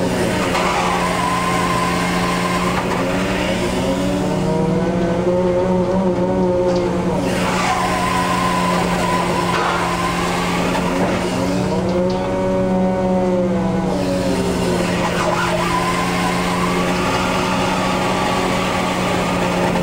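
Fishing boat's engine and hydraulic hauling machinery running under load: a steady low drone with a whine over it that rises and falls in pitch every few seconds.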